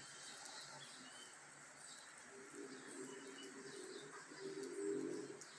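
A dove cooing softly in a low repeated phrase from about two seconds in, over a steady hiss of rain, with a few faint high bird chirps.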